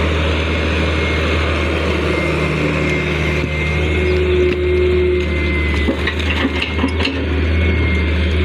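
Heavy diesel earthmoving machinery running steadily with a deep, constant engine hum. A short series of knocks and clatters comes about six to seven seconds in.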